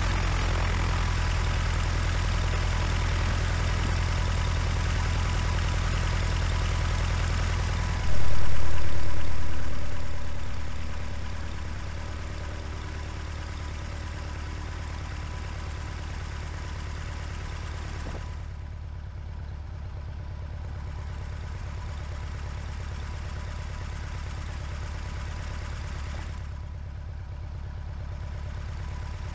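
Cessna 150's Continental O-200 four-cylinder engine and propeller running at taxi idle, a steady hum. About eight seconds in the sound jumps sharply louder, then fades back over a few seconds to a steady, duller engine note.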